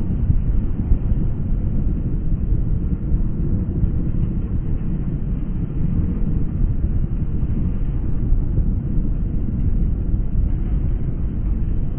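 Steady low rumble and rushing wind of a moving electric train.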